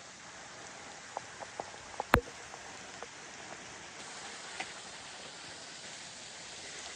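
Steady rain hissing, with a few close drops tapping about a second in and one sharp, loud tap around two seconds in.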